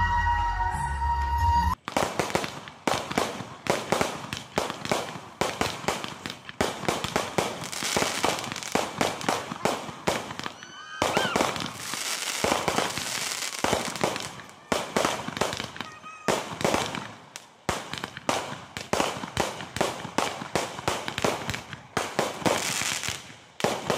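Brief background music that cuts off suddenly under two seconds in, then fireworks going off: a dense, irregular run of cracks and bangs, with a short rising whistle about eleven seconds in.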